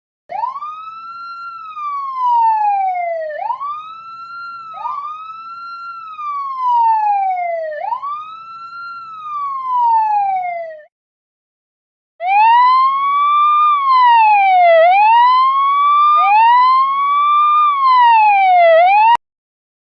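Two different emergency-vehicle sirens, one after the other. The first wails with a quick rise and a long slow fall, four times in about ten seconds; after a second's pause the second rises and falls more evenly, about once every three seconds, over a faint steady low hum, and cuts off suddenly near the end.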